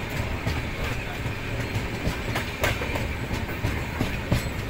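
Train running along the track, heard from aboard: a steady low rumble with irregular clacks and knocks of the wheels over the rails, the sharpest one near the end.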